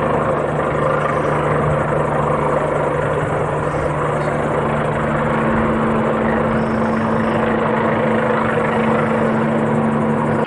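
Helicopter running steadily, its engine and rotor giving a constant low hum over a rushing noise.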